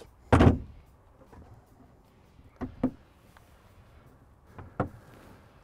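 Boat console access hatch shut with one solid clunk, followed by a few lighter clicks of its latch and panel.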